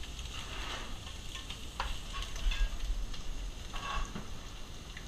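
Food sizzling in a pan, with scattered clicks and clinks of utensils.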